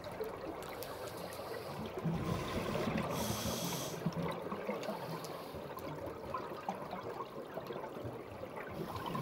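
Scuba diver breathing through a regulator underwater: a hissing inhale about three seconds in, amid steady bubbling and water noise.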